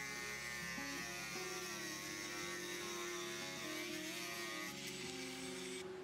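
Background music of sustained, droning notes that shift pitch every second or so.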